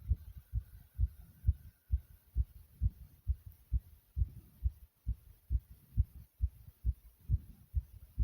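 A human heartbeat, beating fast and hard: an even run of low, dull thumps, about two a second.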